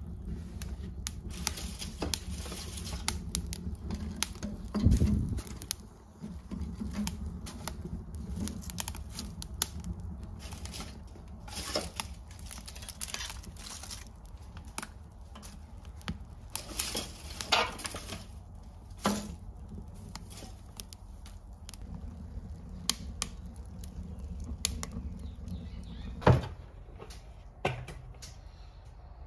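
Kindling fire crackling in a cast-iron potbelly stove: irregular sharp pops and snaps over a low steady rumble, with a dull thump about five seconds in.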